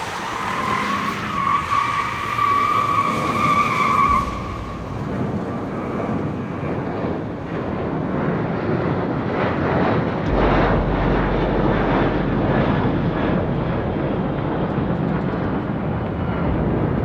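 Film sound-effects track of a car: a steady high squeal for about three seconds, then noisy engine and road sound, with a deep rumble coming in about ten seconds in.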